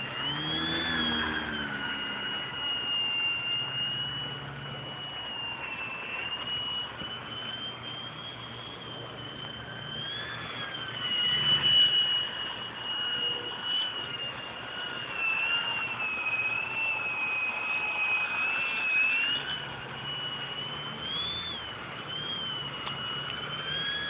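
Electric motor and 9x4.7 propeller of a small EPP foam 3D aerobatic RC plane whining in flight, its pitch wavering up and down the whole time and swelling loudest about halfway through.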